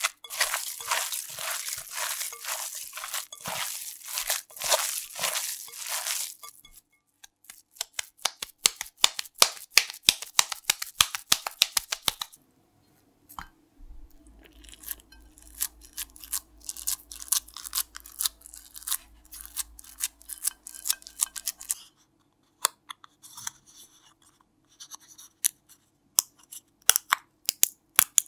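Hands kneading raw ground beef mixed with chopped onion and breadcrumbs for meatloaf: a dense, sticky crackling for about six seconds, then a run of sharp wet clicks. From about the middle on, fingers press and pat the meat into a ceramic terrine dish, with softer scattered clicks.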